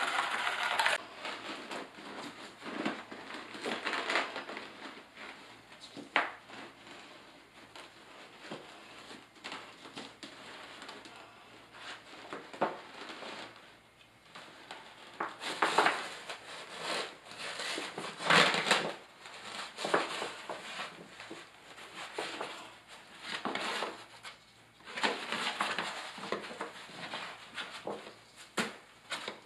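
A trowel scraping thinset mortar across the shower floor, then a Laticrete Hydro Ban sheet membrane rustling and scraping as it is laid into the wet mortar and smoothed flat by hand. The sounds come in irregular bursts.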